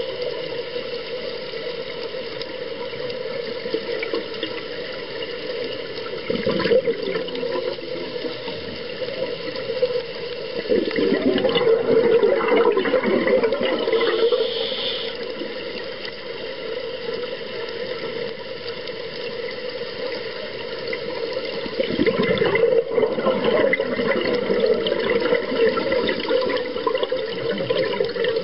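Underwater recording through a camera housing: steady rushing water noise, with louder swells of bubbling from a scuba diver's exhaled breath about 11 seconds and again about 22 seconds in, each lasting a few seconds.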